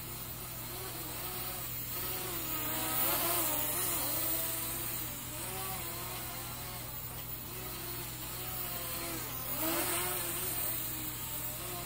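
Syma X11 toy quadcopter's small motors and propellers whining in flight, the pitch rising and falling as the throttle changes, loudest about three seconds in and again near ten seconds.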